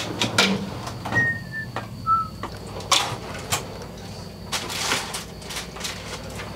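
Metal tools clinking and clattering in a tool chest drawer as it is rummaged through and slid, a run of sharp knocks and rattles over a low steady hum.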